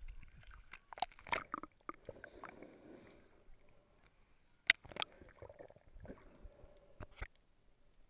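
Water sloshing and scattered sharp knocks, muffled by a waterproof camera housing as it dips from the surface to under water. The loudest knocks come about a second in and again just before the middle.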